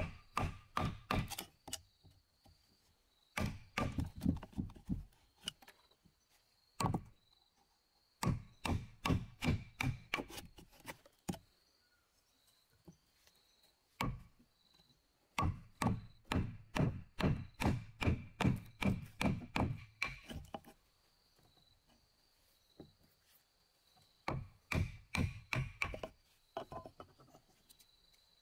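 A mallet drives a wood chisel into a wooden beam to chop out a mortise. The blows come in quick runs of about four to five a second, with pauses between the runs.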